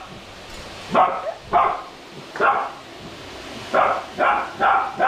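Golden retriever puppy barking in short, sharp barks, about six of them in twos and threes, while tied on its leash, kept from the vegetables being cut in front of it.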